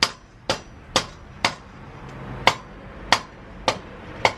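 Rubber mallet striking the end of a dirt bike's rear axle, tapping it back through the wheel: about eight sharp knocks, roughly two a second, with a short pause midway.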